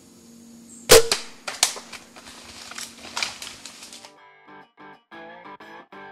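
A compound bow shot at a black bear, one loud sharp crack about a second in, followed by scattered cracks and thumps for about three seconds. Guitar music starts about four seconds in.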